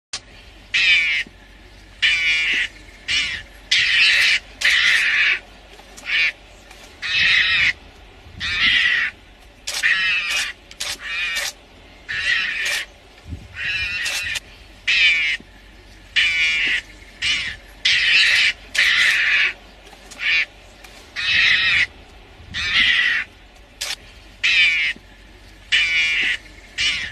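Mongoose calling at the lionesses: short, buzzy calls repeated about once a second, sometimes in quick pairs, the alarm and threat calls of a mongoose cornered by predators.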